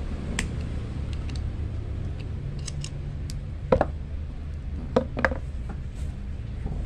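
Steel pliers clicking and clinking as they grip a short piece of fishhook wire, then three sharp knocks as pliers are set down on a wooden plank, over a steady low rumble of passing road traffic.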